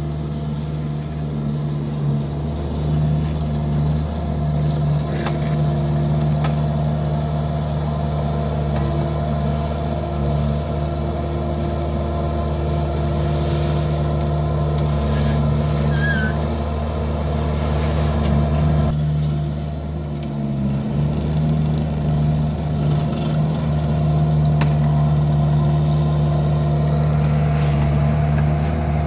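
Vermeer mini skid steer's engine running steadily under work. Its note dips and shifts briefly about two-thirds of the way through, then steadies again.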